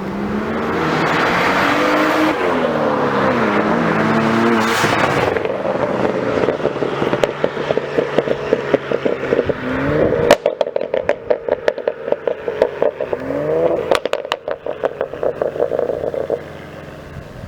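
BMW turbocharged straight-six with an aftermarket exhaust being revved: the engine note climbs and falls through several blips in the first five seconds, then the exhaust burbles with rapid crackles and pops on the overrun, with one more rev partway through. It settles to a quieter idle near the end.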